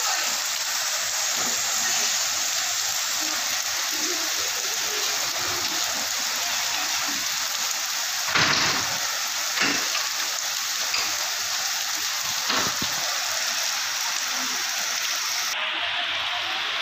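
Torrential rain pouring steadily onto flooded ground and standing water, an even hiss with a few brief louder thumps in the middle.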